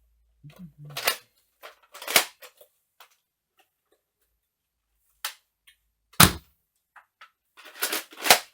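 Buzz Bee foam-dart blaster being loaded, worked and fired: a series of sharp plastic clicks and snaps, the loudest about six seconds in and again near the end.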